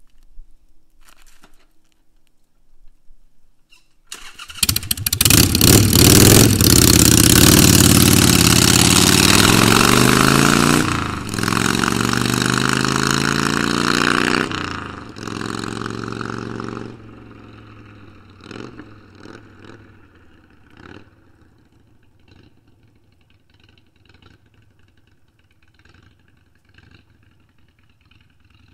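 2006 Harley-Davidson Sportster 1200's air-cooled V-twin starting about four seconds in, then revving as the trike pulls away, its pitch climbing and dropping at two upshifts before it fades into the distance.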